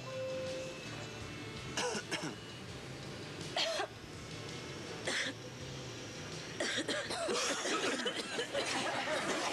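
People coughing, three or four short sharp coughs spread over several seconds under light music, followed near the end by a jumble of several voices over the music.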